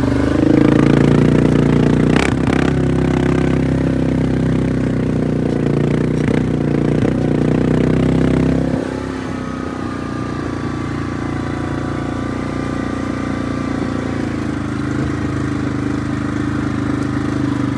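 Yamaha Grizzly 700 ATV's single-cylinder four-stroke engine running through a custom aftermarket exhaust tip, held at raised revs and then dropping about nine seconds in to a lower, steady idle. There is a short sharp knock about two seconds in.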